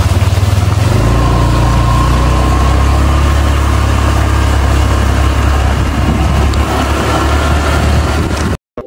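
Motorcycle running at riding speed, a steady low engine rumble mixed with rushing wind on the microphone; it cuts off suddenly near the end.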